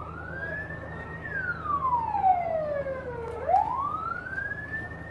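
Emergency vehicle siren wailing, its pitch sliding slowly up and down about once every four seconds.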